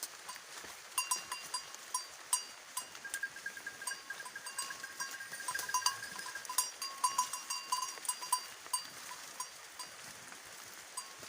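Bells on grazing goats clanking irregularly, each strike ringing briefly, sometimes several in quick succession. A high, fast-pulsing trill sounds through the middle.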